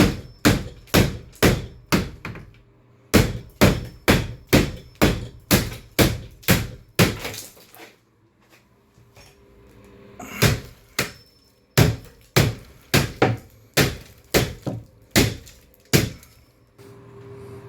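Hammer striking repeatedly, about two sharp blows a second in three runs with short pauses, knocking the corner bead out of a cut fiberglass tub surround.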